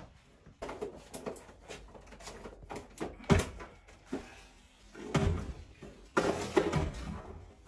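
Kitchen clatter: a string of knocks and bangs, the loudest a sharp bang about three seconds in.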